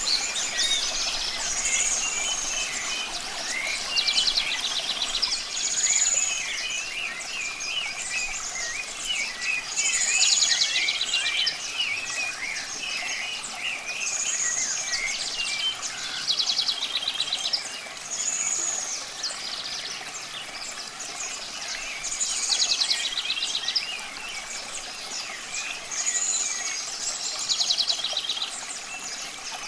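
Several birds singing: one repeats a rapid trill ending in a high whistled note about every four seconds, while others keep up many short chirps, over a faint steady hiss.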